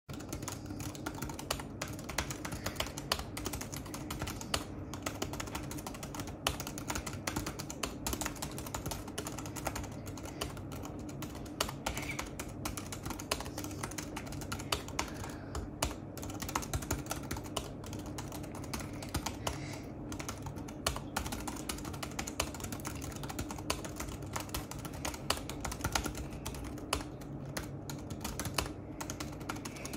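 Continuous typing on the backlit keys of an Inateck KB02006 keyboard case for the iPad Pro 12.9: a dense, irregular run of light key clicks, over a steady low hum.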